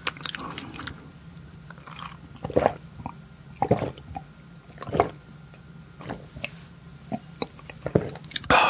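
Close-miked drinking: a series of wet gulps and swallows, roughly a second apart, from a small glass of drink.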